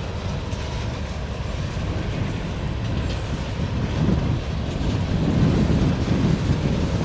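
Freight cars of a long mixed manifest train rolling past, a steady rumble and clatter of steel wheels on rail that grows a little louder about four seconds in.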